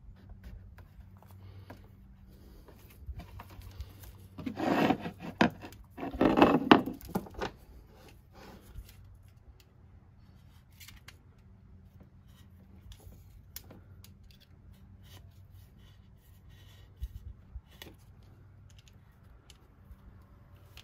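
An adhesive-backed strip being pulled from its roll, handled against a metal speed square and cut with a utility knife. There are two loud rasping bursts about five and six and a half seconds in, then scattered light clicks and scrapes.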